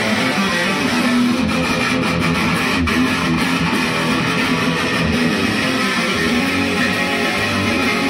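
Electric guitar music, loud and steady.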